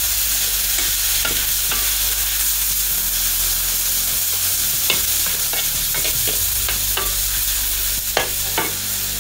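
Rau bò khai greens sizzling in a hot wok as liquid from cooked pork intestines is poured in, then stir-fried with a metal spatula that scrapes and knocks against the wok. The knocks come more often from about halfway, with two sharp ones near the end.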